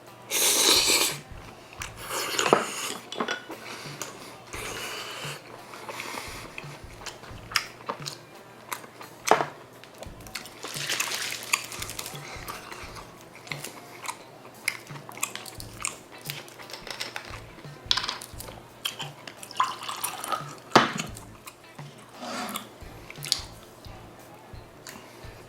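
Spoons and chopsticks clinking and scraping against bowls and dishes during a meal, in scattered short clicks with a few louder knocks.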